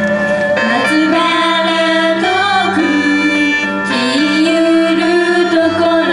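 Girls singing a song into handheld microphones over instrumental accompaniment. The vocal line comes in just over half a second in, with the backing music playing throughout.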